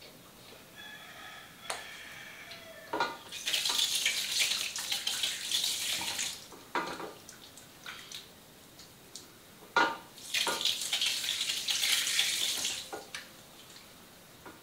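Water running from a salon shampoo basin's tap in two spells of about three seconds each, splashing into the basin, with a few sharp knocks around them.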